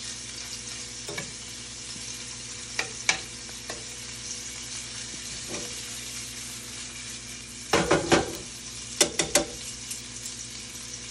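Italian sausage sizzling steadily as it browns in oil in a skillet, with scattered clicks and clacks of metal tongs turning the pieces. The loudest clatter comes about eight seconds in, followed by three quick clicks.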